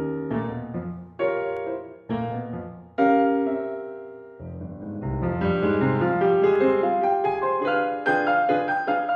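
Solo piano music: a few struck chords about a second apart, a held chord fading away, then a quicker, busier run of notes in the second half.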